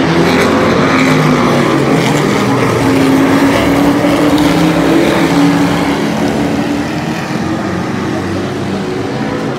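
Super truck race engines running at racing speed around the oval: a loud, steady engine drone that is a little louder in the first half and eases off later as the field moves away.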